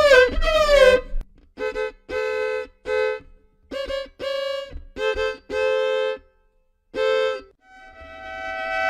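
Violin played to mimic animal calls: a few quick downward-sliding notes, then a string of short, separate bowed notes with gaps between them, and near the end a long held note that swells in volume.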